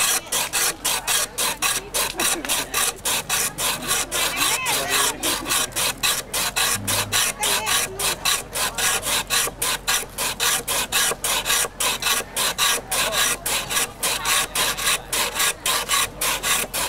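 Ice being scraped by hand against a shaver or grater: rapid, even rasping strokes, about three to four a second, without a break.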